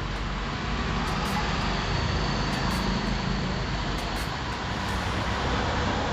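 Steady, low motor-vehicle running noise, an even rumble with no distinct knocks or changes.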